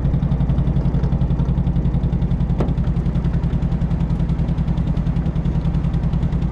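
MG TD's 1.3-litre XPAG four-cylinder engine running steadily at low revs with an even pulse, held at about 1500 RPM and unwilling to rev higher, a fault the owner later suspects is the car running out of fuel. One sharp click about two and a half seconds in.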